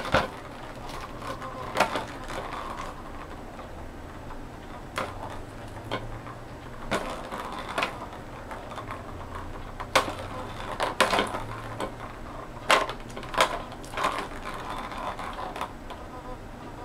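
Plastic ball rattling around the track of a plastic cat track toy as a kitten bats at it: irregular clicks and knocks, clustered more thickly in the second half.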